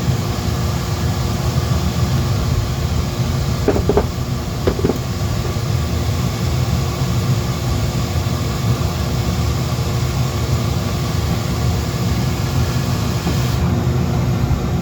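Dremel rotary tool running steadily with a constant motor hum, its bit texturing wood.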